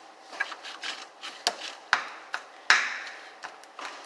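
A toy knife chopping play putty against a hard surface: about nine irregular knocks, the loudest a little under three seconds in.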